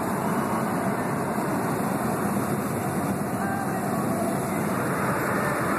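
Steady road and wind noise of a Volkswagen Gol cruising at highway speed, heard from inside the cabin.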